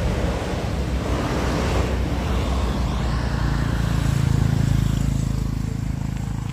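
A motor vehicle passes close by on the road. Its engine hum grows louder to a peak about four and a half seconds in, then fades, over a steady rush of wind and road noise.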